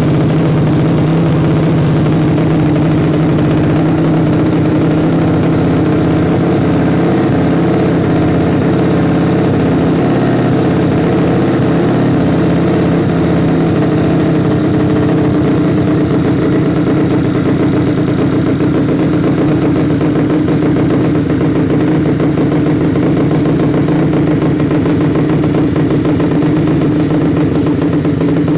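Tuned 130cc Suzuki Nex scooter engine running at a steady idle, loud and unchanging.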